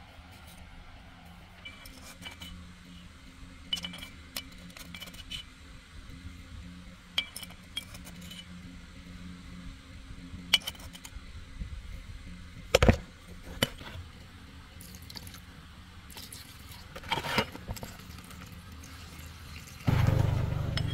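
Small metal motorbike parts and hand tools clinking and tapping now and then, some with a brief metallic ring. There is a sharper knock about two-thirds of the way through, and a louder low noise sets in near the end.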